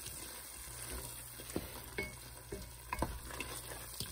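Wooden spatula stirring a thick onion-tomato masala in a stainless steel pot over a faint sizzle, scraping and knocking against the pot several times.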